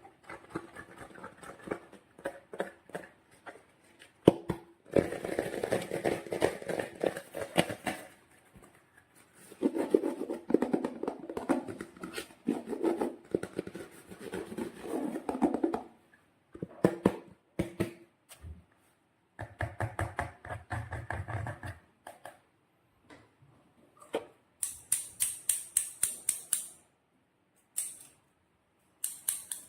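Hands working sticky slime, with wet crackling and clicking in stretches of a few seconds. Near the end comes a run of quick, sharp clicks.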